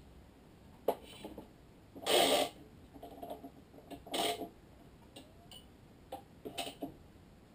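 Badminton racket stringing on a stringing machine: nylon string pulled through the frame with two loud swishes, about two and four seconds in, and several sharp clicks from the machine's clamps and tension head as the string is set up to be tensioned.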